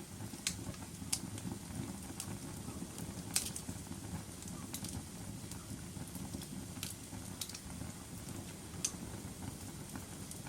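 Wood fire burning in a fireplace: a steady low rumble of flames with irregular sharp crackles and pops, the loudest pop about a third of the way in.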